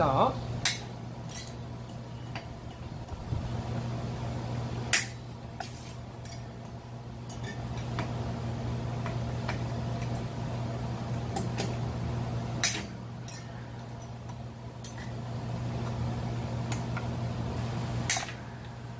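Hand tools and metal engine parts clinking and knocking as a two-stroke brush cutter engine is worked on, with four sharper metallic clanks, about 1, 5, 13 and 18 seconds in. A steady low hum runs underneath.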